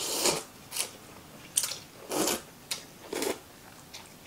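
A person slurping ramen noodles off chopsticks: a run of about six short, noisy slurps, the first and longest about half a second.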